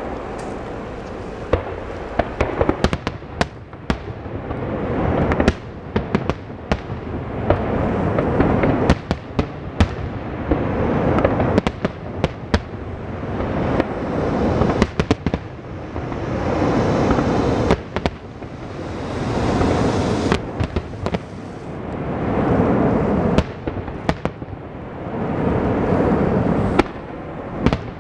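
Aerial fireworks display: shells bursting with many sharp bangs, over a continuous rumble and crackle that swells up and falls back several times.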